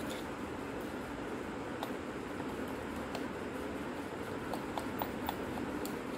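Small plastic clicks and creaks as a thin tool pries at the seam of an old compact camera's plastic casing and the case is worked open, several clicks coming close together past the middle. Under them runs a steady fan-like hiss.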